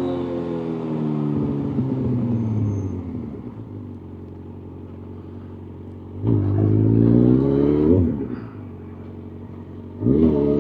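Motorcycle engine on the move: it slows with falling pitch, runs quietly for a couple of seconds, then accelerates with rising pitch about six seconds in. It eases off again just before the eighth second and picks up once more near the end.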